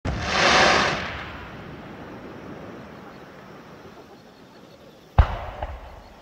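Fireworks: an aerial shell's burst of sparks gives a rush of crackling that swells and fades over about a second. About five seconds in comes a single sharp bang, then a smaller pop.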